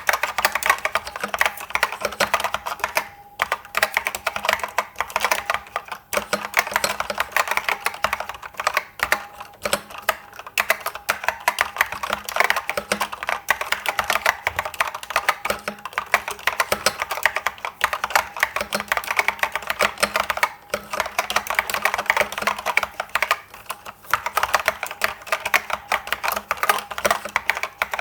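Fast, continuous typing on an IBM 6112884 keyboard with SKCC green Alps switches, a dense run of keystroke clicks broken by a few brief pauses.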